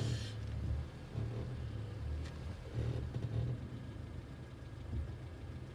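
Low, steady rumble of a car, with a brief hiss at the start and a faint click a little over two seconds in.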